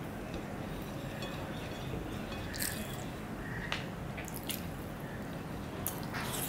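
Close-up eating sounds of a man eating soft chicken khichuri by hand: wet chewing and mouth noises with a few sharp smacks and clicks, and fingers gathering rice on a plate, over a steady low hum.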